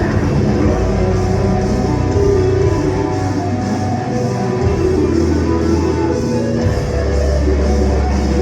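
Rock band playing live at full volume, with guitars, drums and held low bass notes that change pitch twice near the middle and end.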